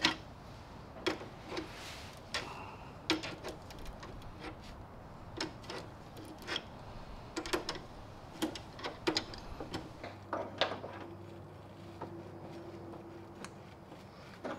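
Irregular clicks and light metallic taps from hand tools working on fuel-line connectors, about one or two a second. Some have a short ring after them. A faint steady hum comes in for a few seconds near the end.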